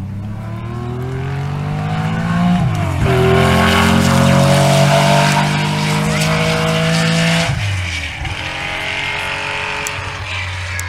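Historic rally car engine accelerating hard past the spectators. Its pitch climbs, drops at a gear change about three seconds in, and climbs again. Near the end it drops once more and runs lower as the car pulls away.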